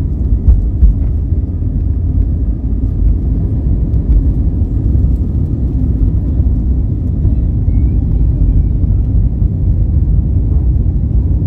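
Cabin noise on an Airbus A320neo's takeoff roll: the engines at takeoff thrust and the landing gear rumbling on the runway make a loud, steady low rumble. There are a couple of brief knocks about a second in.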